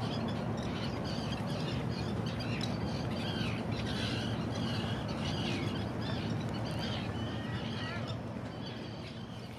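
A flock of seagulls calling, with many overlapping squawks and mewing cries over a steady low rumble. The sound fades out near the end.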